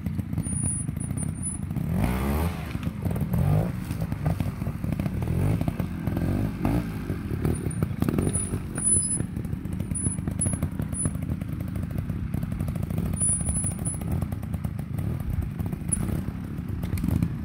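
Trials motorcycle engine running, revved up and back down in short bursts, around two and seven seconds in, as the bike climbs over a log and rocks. Short high bird chirps come through now and then.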